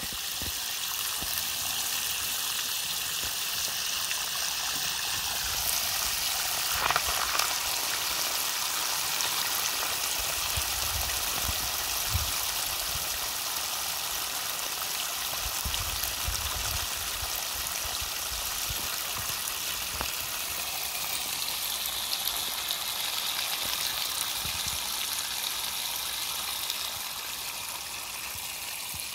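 Carpet-cleaning extractor running with a steady rushing hiss of water and air being drawn through its hose and wand. The pitch of the hiss shifts slightly partway through, with a few light knocks.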